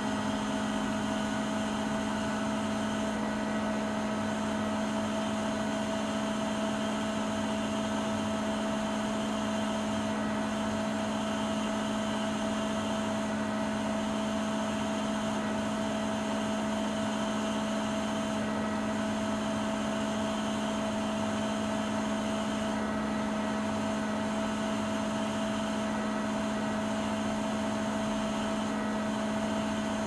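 Siemens iQ300 front-loading washing machine spinning, a steady hum with a fainter, higher steady tone above it.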